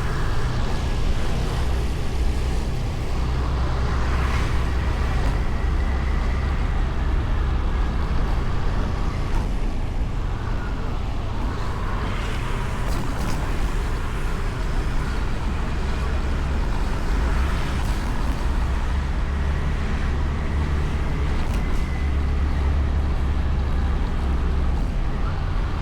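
Road traffic: a steady low rumble of motor vehicles running, swelling now and then as vehicles pass.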